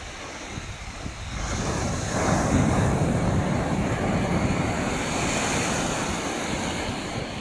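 Surf breaking and washing up the beach, with wind buffeting the microphone; the wash swells louder about two seconds in and stays up.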